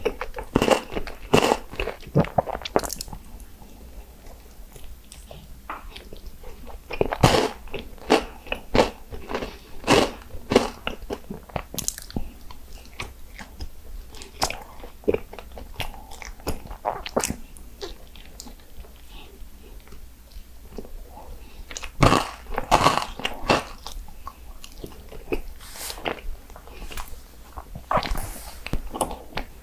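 Close-up mouth sounds of chocolate mochi being bitten and chewed: sharp, wet clicks and crunches in irregular clusters with short pauses between.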